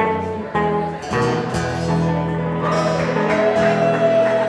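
Two guitars, a steel-string acoustic and an archtop, strumming the closing chords of a country song: a few quick strums, then a final chord left ringing.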